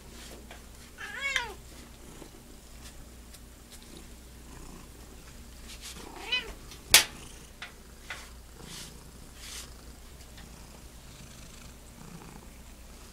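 Domestic cat meowing twice, two short calls that rise and fall in pitch, about a second in and again about six seconds in, over soft purring. A single sharp click comes just after the second meow.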